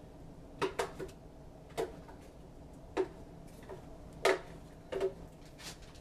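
Kitchenware being handled on a counter: about seven light, irregularly spaced clicks and knocks, the loudest about four seconds in.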